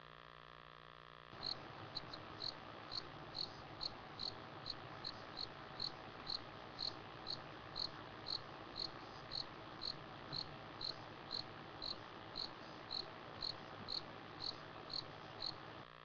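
A cricket chirping steadily at night, about two short high chirps a second, over a faint hiss. The chirping cuts in about a second in, after a faint steady hum, and cuts out again just before the end.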